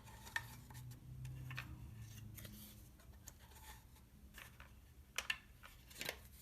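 Faint scattered plastic clicks and handling noises as 35mm slides are fitted into a slide projector's circular slide ring, with a couple of louder clicks near the end.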